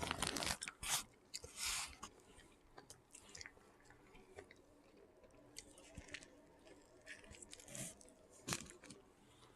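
A person bites into and chews crunchy Burger King chicken close to the microphone, with open-mouthed smacking. The bite and first chews in about the first second are the loudest; after that comes softer, sparse crunching and mouth clicks.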